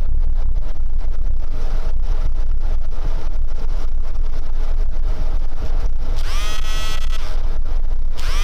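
Steady low rumble of a motor vehicle's engine and road noise heard from inside the cab while driving. About six seconds in, and again near the end, a high-pitched tone rises quickly and then holds for about a second.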